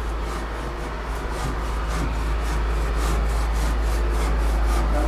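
Rubbing and scraping noise from a handheld camera carried while walking, a rustling about twice a second in step with the steps, over a steady low rumble.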